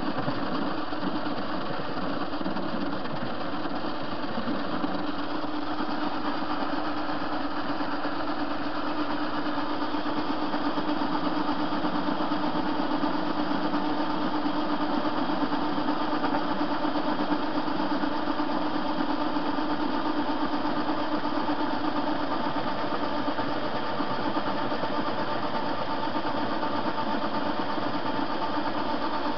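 TV-16 metal lathe running steadily while the cutter turns down a metal bar blank, a constant motor and gear hum with a steady pitched whine.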